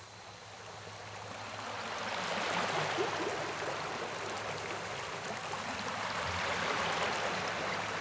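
River rapids: fast whitewater rushing and churning over rocks, a steady hiss of water that swells up from quiet over the first two seconds or so.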